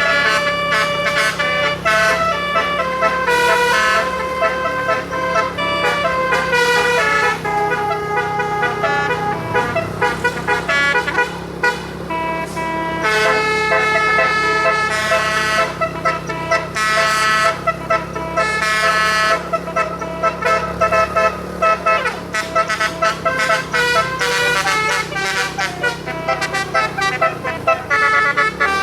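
Bus telolet horn, a multi-trumpet air horn, playing a quick melody of stepped notes, with a steady low engine hum underneath.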